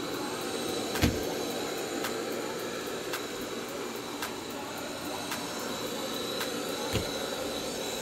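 Uoni S1 robot vacuum running on carpet: a steady suction whir with a faint high whine and light clicks every second or so, plus a low thump about a second in and again near the end.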